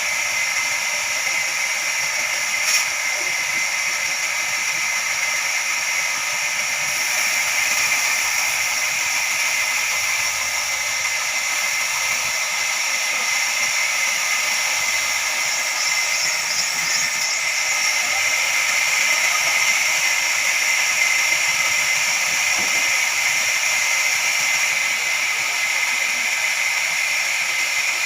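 Horizontal band sawmill running, a steady high hiss with a faint whine throughout, and a single click about three seconds in.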